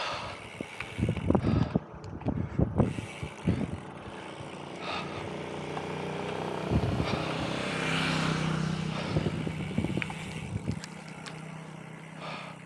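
Wind buffeting the microphone in irregular gusts, then a motor vehicle's engine approaching and passing on the road, loudest about eight seconds in and fading after.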